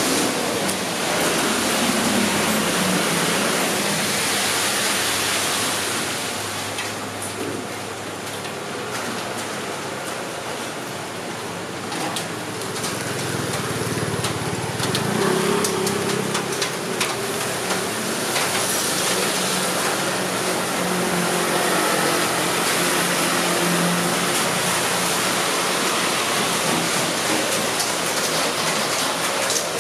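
Rain and road traffic on a wet city street: a steady wash of noise with car engines running by, easing off for a few seconds about six seconds in.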